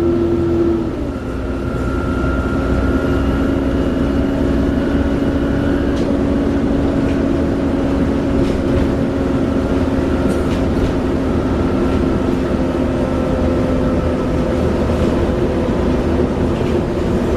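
Class 37 diesel locomotive 37030's engine running with a loud, vacuum-cleaner-like turbocharger whine over a steady low rumble. The whine drops in pitch about a second in, then holds steady.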